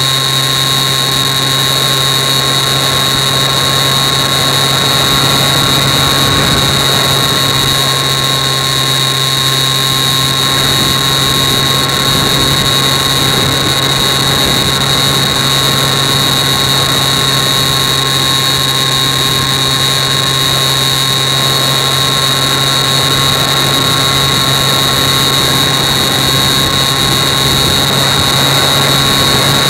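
Electric motor and propeller of a Bixler 3 RC plane running steadily in flight: a constant high whine over rushing air, heard from a camera mounted on the plane.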